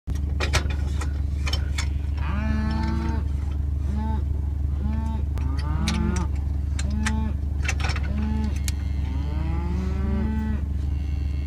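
Hereford cattle mooing, short calls about once a second, some overlapping, over a steady low hum with a few sharp knocks.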